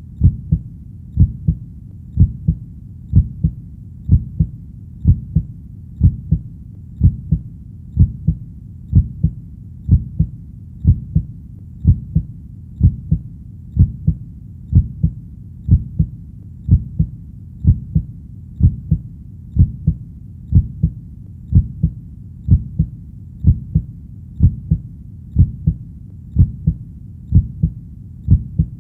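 A heartbeat: low double thumps (lub-dub) repeating steadily about once a second, around 60 beats a minute, over a steady low background.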